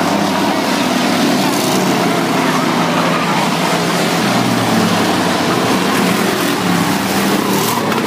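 Several dirt-track race car engines running hard around the oval, a loud continuous engine noise, with pitches rising and falling as cars accelerate and pass.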